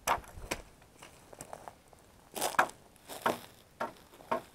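Footsteps crunching over dry leaves and twigs, uneven at first, then about a step every half second.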